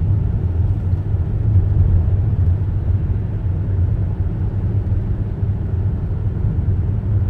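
Steady low rumble of a car driving on a snowy road, heard from inside the cabin: engine and tyre noise with no changes.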